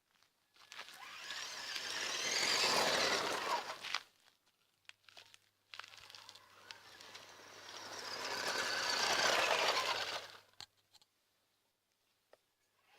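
1/16-scale Traxxas E-Revo RC truck driving over rough ground, tyres crunching, twice: each run builds up over a few seconds and cuts off suddenly.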